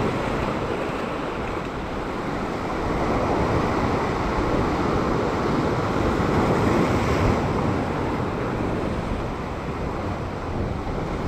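Sea surf washing and churning against a rock ledge just below, swelling a little midway and easing again.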